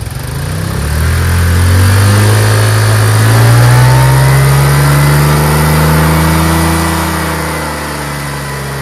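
Chinese 150cc motor scooter engine revved with the throttle for a brake test: the pitch climbs over about three seconds, holds high, then eases back down toward idle near the end.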